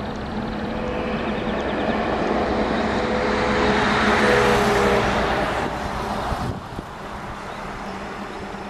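Turbofan engines of a Cessna 525 CitationJet business jet on its takeoff run, a jet noise that swells to a peak about four to five seconds in and then drops off abruptly, settling to a lower steady rumble.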